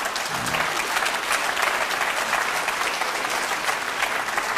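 Audience applauding: a steady, dense patter of many hands clapping after a punchline.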